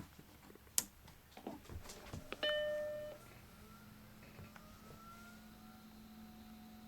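Apple Macintosh SE switched on: a click, then its single startup beep of about 0.7 s, fading. A steady low hum from the fan and a faint rising whine from the warming CRT follow as the computer starts to boot.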